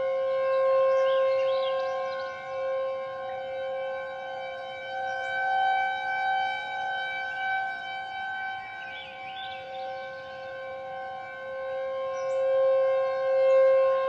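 Federal Signal outdoor warning siren sounding a steady alert tone: several pitches held together as a flat, unwavering chord, with no rise or fall in pitch, while the loudness swells and dips.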